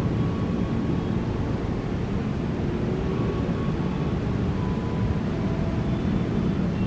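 Passenger train of stainless-steel coaches running along the track, a steady low rumble.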